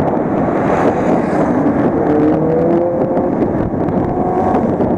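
Motorcycle running at highway speed, heard from on board: heavy wind rush on the microphone over the engine, whose note climbs slightly in the middle.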